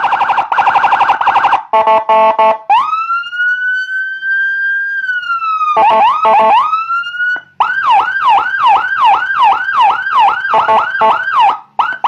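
Custom 100-watt Whelen 295SL-style electronic police-escort siren through its 100-watt speaker, cycling through tones at the push of buttons. It goes from a fast warble to a brief stepped tone, then a long wail that rises, holds and falls. About seven seconds in it changes to a rapid yelp sweeping about two to three times a second.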